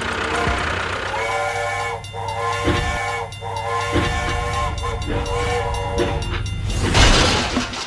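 A horn or whistle sounds in three or four long, steady blasts over a low, steady engine hum, followed by a loud burst of hiss near the end.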